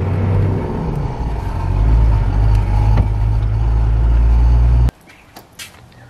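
Toyota LandCruiser driving on a sealed road, heard from inside the cab: a steady low engine and road rumble that grows stronger about two seconds in. It cuts off abruptly near the end, leaving a much quieter stretch with a few faint clicks.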